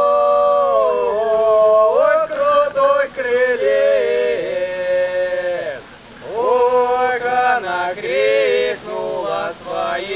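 Men singing unaccompanied in a folk polyphonic style, holding long notes that slide from one pitch to the next. There is a short break about six seconds in.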